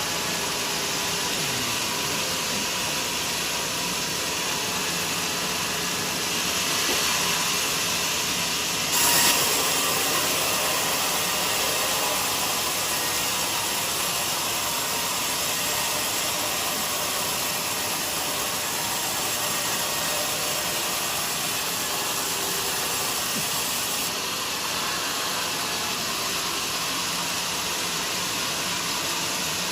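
Band sawmill running and sawing a teak log: a steady, hissing machine noise. It grows louder and brighter about nine seconds in and eases off slightly after twenty-four seconds.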